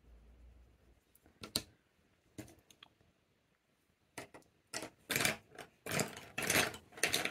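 Colour pencil scratching on paper in quick, repeated strokes, starting near the middle and getting denser and louder toward the end, after a couple of isolated taps earlier on.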